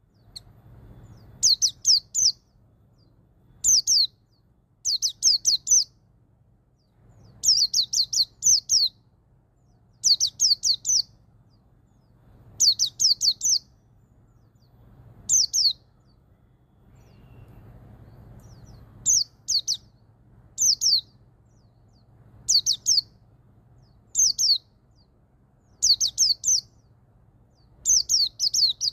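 White-eye (pleci) singing its 'ngalas' song: short phrases of three to five quick, high, falling notes, repeated every one and a half to two seconds.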